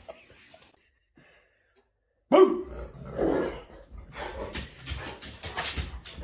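A Rottweiler barking repeatedly while playing, starting suddenly about two seconds in after a moment of near silence.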